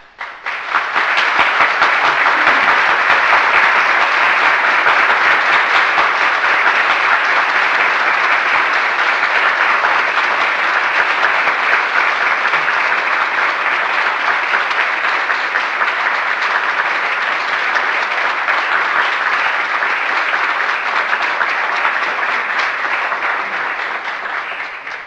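Audience applause: many people clapping steadily in a dense, even wash, coming in within the first second and fading out near the end.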